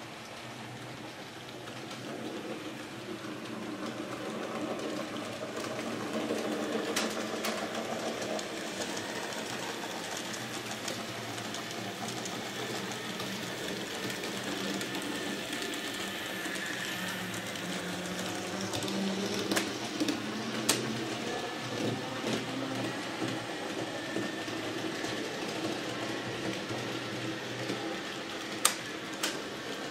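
Model trains running on an electric layout: a steady whir of small locomotive motors and wheels rolling over the track, with a few sharp clicks about seven seconds in, around twenty seconds and near the end.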